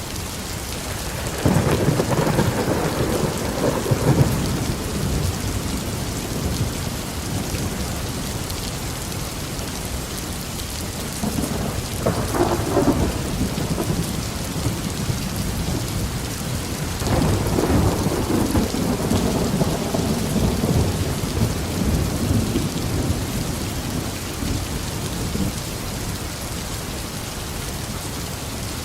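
Steady tropical rain falling on a garden, with thunder rumbling three times: a loud rumble near the start, a shorter one about midway, and a longer rolling one a few seconds later.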